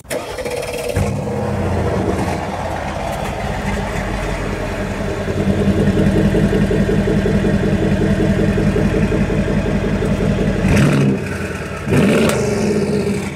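Mercedes ML63 AMG's twin-turbo V8, Stage 2 tuned to 720 hp, heard at its quad exhaust tips. It starts suddenly and runs with a steady rumble. Near the end the low rumble drops off and a short loud burst follows.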